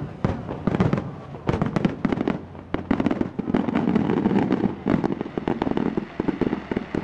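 Aerial firework shells bursting one after another, with many sharp reports and a dense stretch of rapid crackling from about three seconds in.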